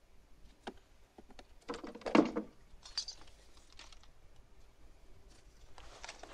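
Paper banknotes rustling and crinkling as they are handled, in short irregular bouts with a few sharp clicks. The loudest handling comes about two seconds in.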